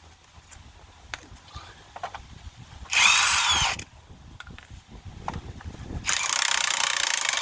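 Power tool with a socket spinning the lug nuts off a minivan's raised wheel, in two bursts: a short one about three seconds in and a longer one from about six seconds in.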